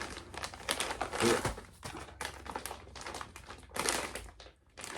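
Plastic packaging crinkling and rustling in irregular bursts with sharp crackles as a package is opened and handled.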